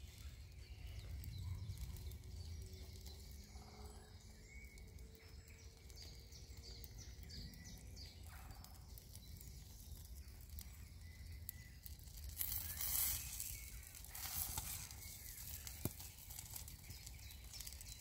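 Quiet outdoor ambience: a low, steady rumble with faint scattered clicks, and two brief louder rustles about twelve and fourteen seconds in.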